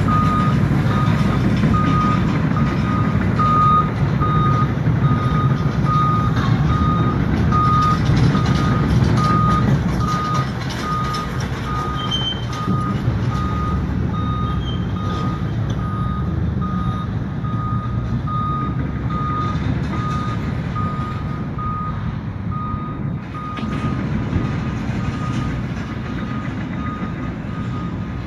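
A vehicle's backup alarm beeping at an even pace, over the low rumble of a heavy engine running at a demolition site. The rumble eases a little about ten seconds in.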